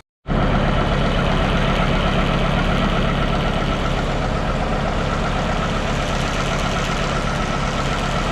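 Farm crop sprayer's engine running loud and steady while the sprayer is being filled, the din it makes at filling; it cuts in abruptly just after the start.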